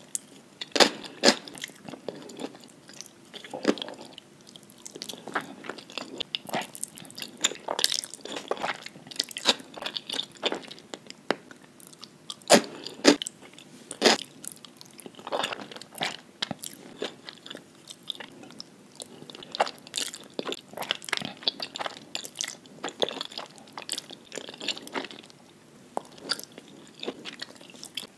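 Close-miked mouth sounds of eating: crisp, irregular crunches from chewing yellow pickled radish (danmuji), mixed with wet chewing of black bean sauce noodles.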